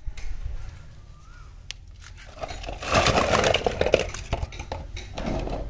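Toy cars and trucks clattering and clinking against each other as a handful is dropped onto a pile on wet concrete. There are a few light clicks first, then a burst of clatter lasting about a second and a half in the middle, over a low steady rumble.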